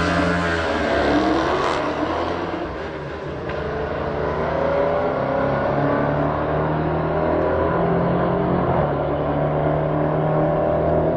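Drag-race launch: a Dodge Charger and a sport motorcycle accelerating hard down the strip, engine pitch rising just after the start. A slowly rising engine tone builds again near the end.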